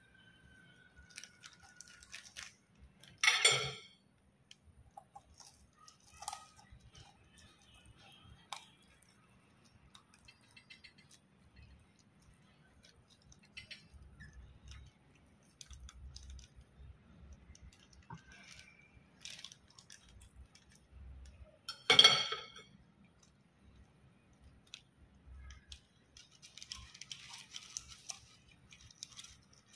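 Knife and fork carving a cooked whole chicken in its opened foil and plastic wrapping: scattered light clinks and scrapes, with the wrapping crinkling. Two louder sharp crackles come about three and a half seconds in and again about 22 seconds in.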